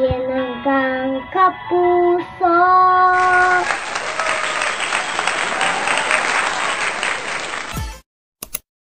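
A young girl singing the last held notes of a song, followed about three and a half seconds in by a crowd applauding for about four seconds, which cuts off abruptly; a brief click near the end.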